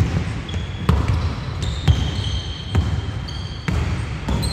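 Basketball dribbled on a hardwood court, bouncing about once a second, with short high sneaker squeaks on the floor in between.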